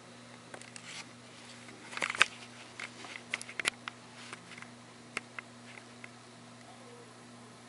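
Handling noise: scattered light clicks and taps, with a louder cluster about two seconds in, over a steady low hum.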